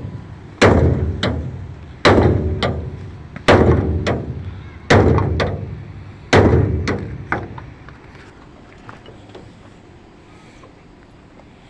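Heavy thuds, five of them about a second and a half apart, each followed by a smaller knock and a long ringing decay. They stop about seven seconds in, leaving only a faint steady background.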